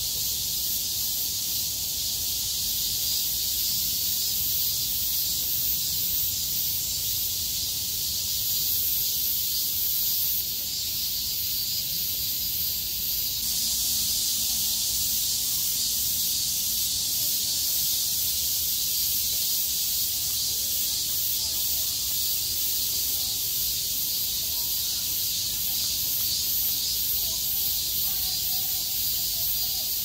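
Chorus of many cicadas singing together: a dense, steady high-pitched buzz with a fine pulsing texture.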